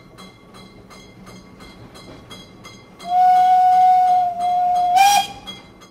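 Steam locomotive chuffing faintly at about four beats a second, then its steam whistle sounds a long, loud blast from about three seconds in, dipping briefly partway and rising in pitch as it ends.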